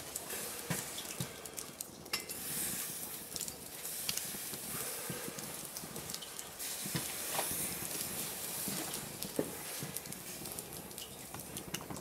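Twig wood fire burning hard in a small folding box stove (Bushbox LF), crackling with scattered sharp pops over a steady hiss.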